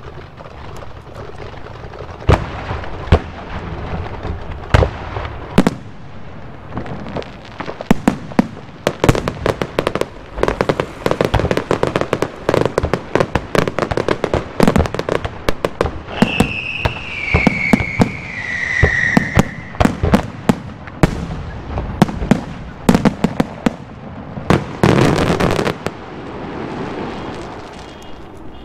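Aerial fireworks going off in quick succession: sharp shell bursts and bangs with stretches of dense crackling, thickest in a final flurry near the end. A falling whistle sounds about two-thirds of the way through.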